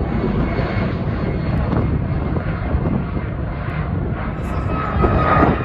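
Jet engine noise of a twin-engine airliner climbing out after takeoff: a steady rumble that swells slightly about five seconds in.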